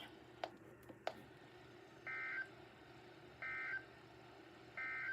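Emergency Alert System end-of-message data bursts: three short, identical, buzzy two-tone chirps about a second apart, the digital SAME code that closes an alert, over faint broadcast hiss.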